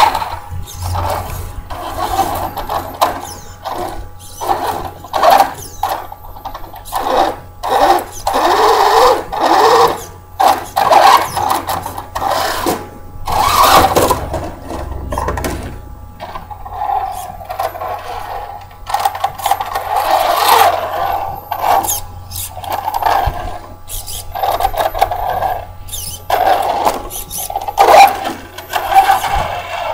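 Brushless electric motor of a Traxxas Slash 4x4 VXL radio-controlled truck whining in repeated short bursts of throttle, the pitch rising with each burst, with tyres scrabbling on dirt.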